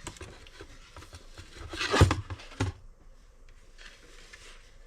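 Scattered light clicks and handling noises, with a short loud rustle and knock about two seconds in and a smaller knock just after.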